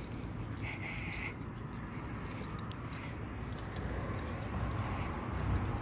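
Red-nose pit bull walking on a leash, its chain collar jingling lightly over a steady low rumble. There is a brief high sound from the dog about a second in.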